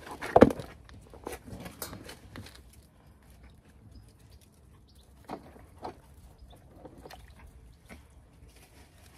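A plastic trough planter is set down with a knock about half a second in, followed by scattered rustles and light clicks of hands working in potting soil and pots.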